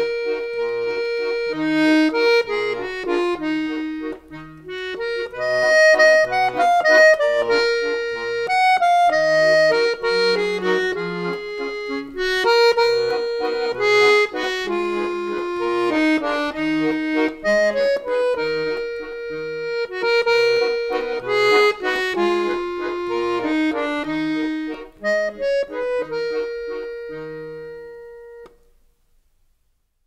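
Accordion playing a melody over short, evenly spaced bass notes, closing on a held note that fades out near the end.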